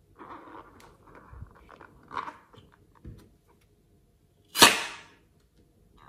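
Soft squeaks and rubbing from a liquid-filled rubber balloon being handled, then one sharp, loud snip about four and a half seconds in as scissors cut through the balloon's neck.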